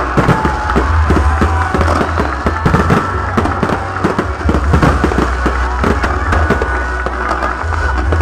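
Aerial fireworks display: a dense barrage of shells bursting, with many sharp bangs and crackles in quick succession, several a second.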